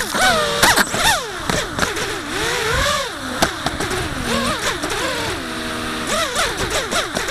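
FPV racing quadcopter's brushless motors and propellers whining, heard from its onboard camera, the pitch rising and falling quickly with the throttle and holding steady for a moment about five and a half seconds in. A few sharp knocks come in the first second or so and again about three and a half seconds in.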